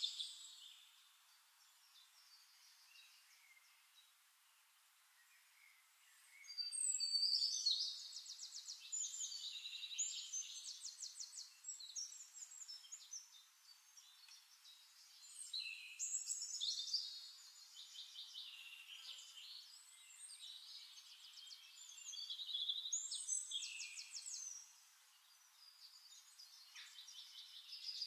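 Songbirds singing in phrases of rapid high trills and chirps, with quieter gaps between phrases. The first several seconds hold almost nothing.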